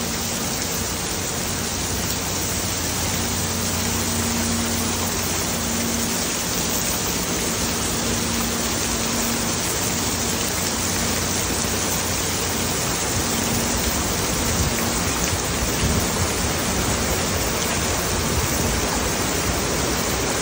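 Heavy rain pouring steadily onto a wet cobblestone street: a dense, even hiss.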